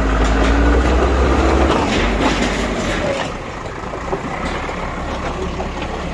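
Bulldozer's diesel engine running with a deep rumble that drops away after about a second and a half, followed by scattered knocks and clatter.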